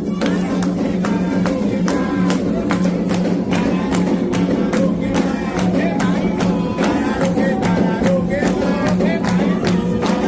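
Candomblé ritual music: drums and other percussion in a steady, driving rhythm, with voices singing over them.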